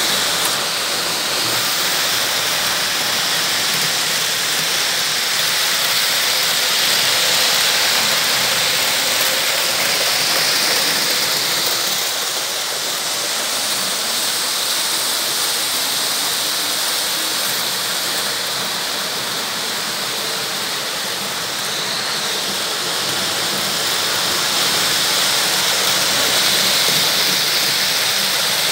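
Märklin H0 model trains running on metal M-track, a steady rushing rolling noise that swells and eases slightly.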